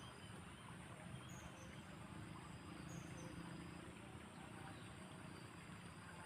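Faint outdoor ambience: insects calling with a steady high-pitched buzz, a few short high chirps, and a faint low rumble underneath.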